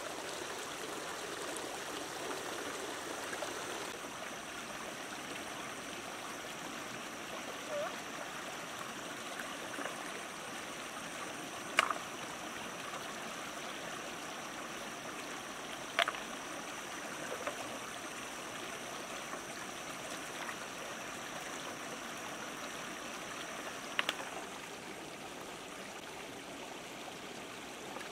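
Shallow rocky stream flowing and trickling over stones, with three sharp knocks well apart as stones are turned over in the stream bed. A thin steady high tone runs above it and stops near the end.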